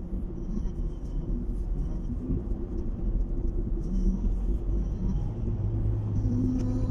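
Steady low rumble of tyre and engine noise heard inside a car's cabin while driving along a highway.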